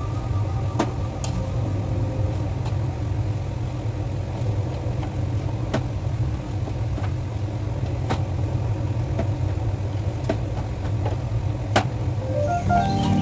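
A steady low hum with a few faint, sharp clicks scattered through it; a melody begins near the end.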